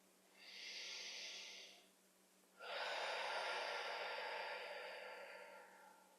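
A person taking a slow, deep breath: a breath in lasting about a second and a half, then after a short pause a longer breath out that gradually fades away.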